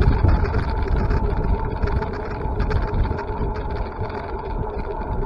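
Wind buffeting the microphone while riding: a heavy, gusty rumble, with a steady whine held underneath.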